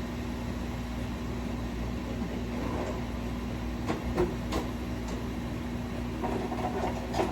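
Steady kitchen hum with a few light clicks and taps, as of a cooking utensil against a pan, in the middle and again near the end.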